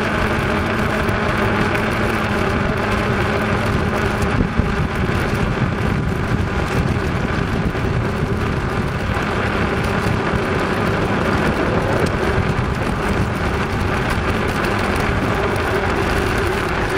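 Bicycle tyres humming on a paved path as the bike rolls steadily along, a continuous even rolling noise with some faint steady tones in it.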